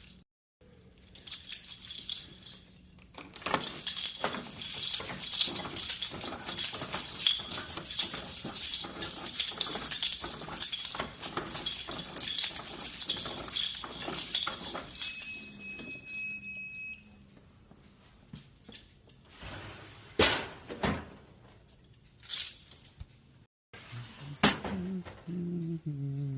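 Fast, continuous light clinking and rattling of small hard items for about eleven seconds, then a steady electronic beep lasting about two seconds, followed by a few scattered clicks and knocks.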